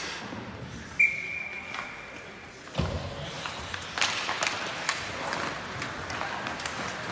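Ice hockey play in a rink. About a second in, a sharp metallic ping rings on for about a second and a half. A heavy thud follows near the three-second mark, then a run of sharp clicks and clatter from sticks and skates over the echoing rink noise.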